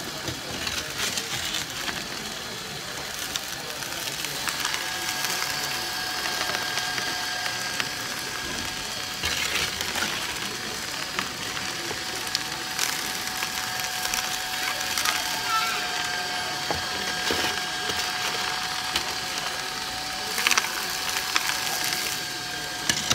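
Background hubbub of a busy hall, with scattered handling clicks and knocks. A steady high hum comes in about four seconds in and holds.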